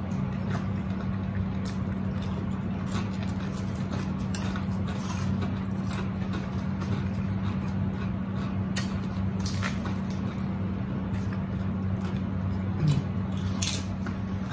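Close-up eating sounds: chewing and crunching of tortilla chips and a sub sandwich, with scattered crisp clicks and wet mouth sounds, over a steady low hum.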